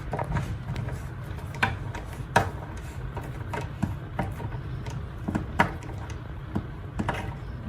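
Flathead screwdriver tightening a metal worm-drive hose clamp: irregular small metallic clicks and scrapes, over a steady low hum.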